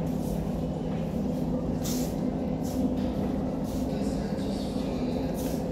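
Steady low hum of a large store interior, with walking footsteps about once a second.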